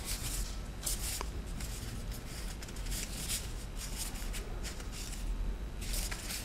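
Paper instruction leaflets rustling and flapping as they are leafed through by hand, in several short bursts, over a low steady hum.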